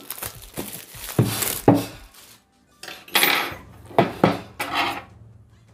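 Hands tearing open and handling a cardboard box and its packing: a run of irregular rustles, scrapes and knocks, with a short pause a little past halfway.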